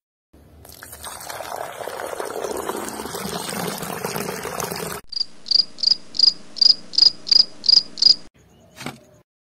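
Water from a small pump's hose pouring and splashing into a shallow pool. About five seconds in, it cuts to a cricket chirping in an even run, about three chirps a second.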